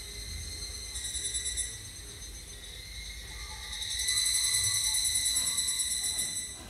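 High, buzzing insect trill, cricket-like, that comes in bursts: a short one about a second in and a longer, louder one from about four seconds in that stops just before the end.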